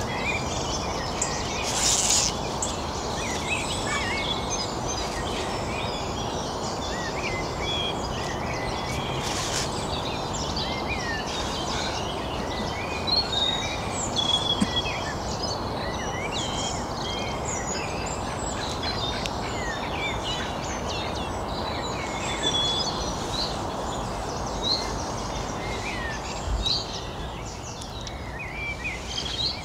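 Small birds chirping and singing, many short overlapping calls, over a steady background rush. A few brief louder rustles come near the start and about halfway through.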